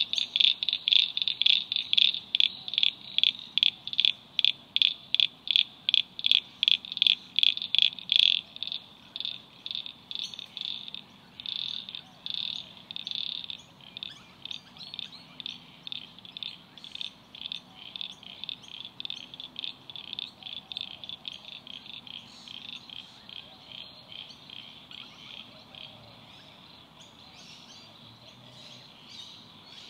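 Frogs calling in the wetland: a steady series of short, high notes, about three or four a second. They are loud for the first eight seconds or so, then fainter as the calling carries on.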